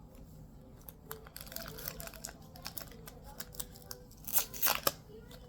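A Pokémon trading-card booster pack wrapper being torn open and crinkled in the hands: a run of crackles and rustles, loudest about four seconds in.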